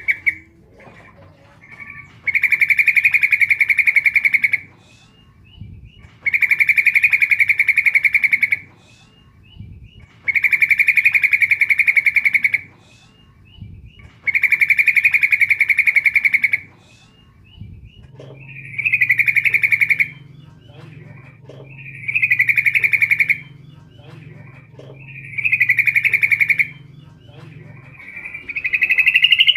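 Female yellow-vented bulbul (trucukan) calling to attract a male: a rapid, buzzy chattering phrase about two seconds long, repeated about every four seconds, eight times.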